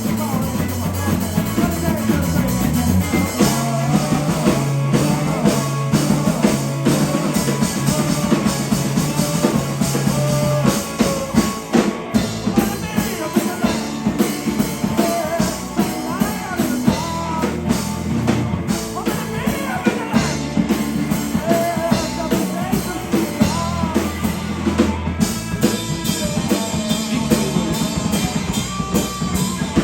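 Live rock band playing: drum kit, electric guitar and bass, with some singing, heard through a fan's camera microphone in the room.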